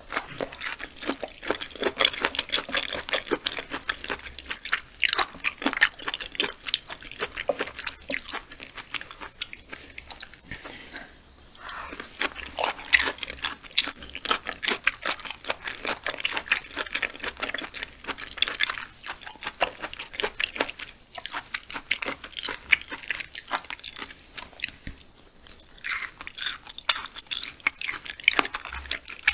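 Close-miked chewing of raw yellowtail sashimi: a dense, continuous run of short mouth clicks.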